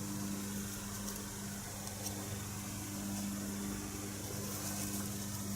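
Steady low background hum with hiss, with a few faint small clicks.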